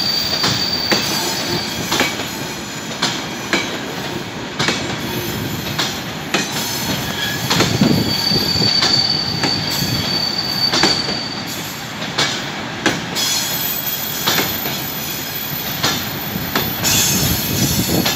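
Freight train of covered sliding-wall wagons rolling past: a steady rumble of wheels with irregular sharp clacks over the rail joints. Brief high wheel squeals come just after the start, again around the middle, and higher still later on.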